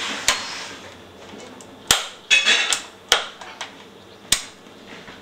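National HRO-60 receiver giving sharp clicks and pops while its controls are worked, four loud ones spaced about a second apart with a short crackling burst in the middle, over a steady hiss.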